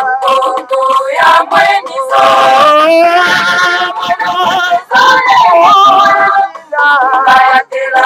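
Several voices singing together in harmony, in held and gliding sung phrases with short breaks between them.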